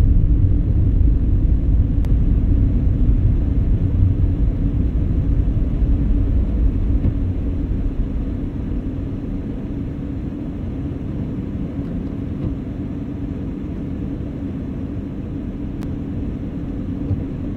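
Car's low, steady road rumble heard from inside the cabin while driving. About halfway through it drops to a quieter steady rumble as the car comes to a stop.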